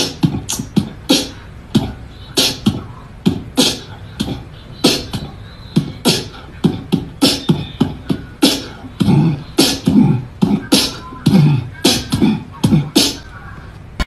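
Beatbox-style percussion: an irregular run of short low thumps and sharp hissing clicks, about two to three a second, that stops abruptly at the end.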